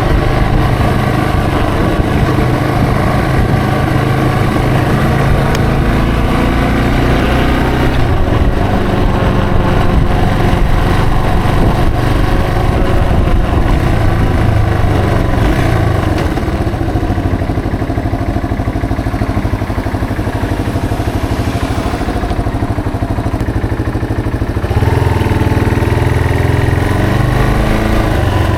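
Yamaha TW225's single-cylinder four-stroke engine running under way, its pitch rising and falling with the throttle and gear changes. Past the middle it drops to a quieter, lower note for several seconds, then picks up again near the end with a rising pitch as it pulls away.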